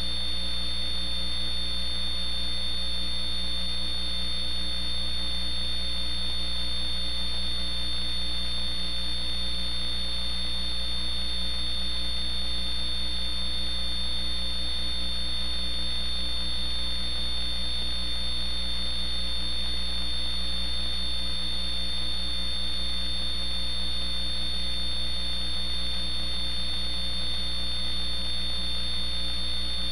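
Steady electrical hum with a constant high-pitched whine, unchanging throughout, with no voices or other events.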